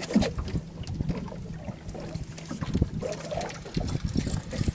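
Water lapping and sloshing against a boat hull, with irregular low knocks.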